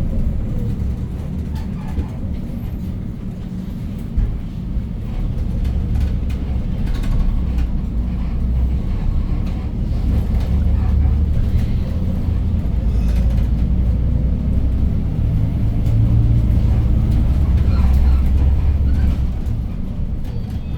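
Engine of a 2015 Hyundai New Super Aerocity city bus (C6AF 290 hp CNG engine, 5-speed manual) running as the bus drives between stops, heard from inside the cabin at the front: a steady low rumble, louder through the middle and easing near the end, with a single sharp knock about four seconds in.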